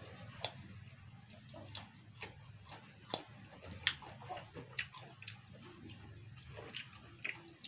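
Chewing and mouth smacking while eating rujak: scattered small, irregular clicks, with a low steady hum underneath.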